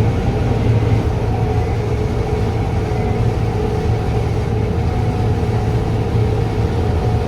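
Combine harvester running steadily while cutting corn: an even, low engine drone with a faint steady hum above it and no change in speed.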